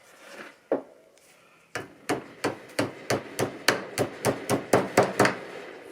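Hammer tapping on a steel hydraulic cylinder: one knock, then a steady run of about a dozen light strikes, about three a second, driving the cut end of the new retaining wire into its groove.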